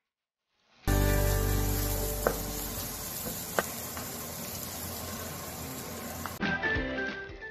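Minced garlic dropped into hot fat in a nonstick pan: a sudden loud sizzle that gradually eases, with two sharp clicks along the way. Music plays underneath, and the sound changes abruptly near the end.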